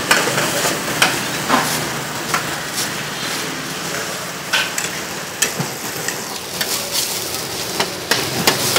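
Noodles frying on a flat steel griddle with a steady sizzle, while a metal spatula scrapes and clacks against the griddle at irregular moments.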